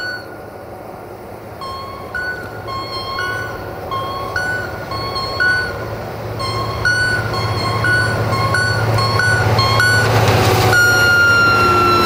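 Two-tone horn of a GM-rebuilt CFR class 64 diesel locomotive played in a rapid run of short toots alternating between a lower and a higher note, then one long high blast near the end. Under it the locomotive's engine rumble and running noise grow steadily louder as it approaches and passes close.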